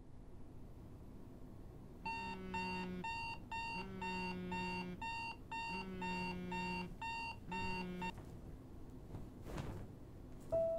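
Smartphone alarm going off: a short electronic beeping phrase over a low chime, repeated four times about every second and a half, then cut off about eight seconds in. A brief rustle follows, and soft music starts right at the end.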